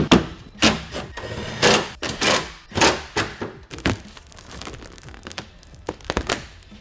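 Irregular plastic knocks and thunks as an LED taillight housing is pressed into place on a pickup's tail, then softer crinkling as clear protective film is peeled off the lens, with a few sharp clicks near the end.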